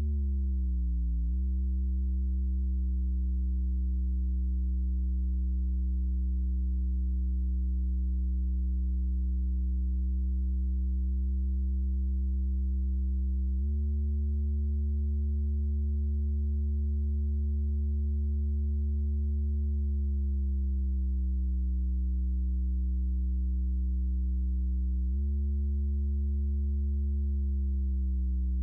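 Doepfer A-110 VCO in Softube Modular putting out a steady low buzzy oscillator tone. Its pitch slides down in the first second or so, jumps up about 14 seconds in, slides down again around 20 seconds, and jumps up again about 25 seconds in. The shifts come from its Tune control being modulated from Bitwig and jumping in value.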